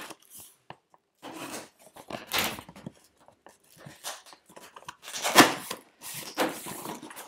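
A cardboard shipping box being cut open with scissors and its flaps pulled apart: a series of irregular scrapes and rustles of cardboard and tape, the loudest about five seconds in.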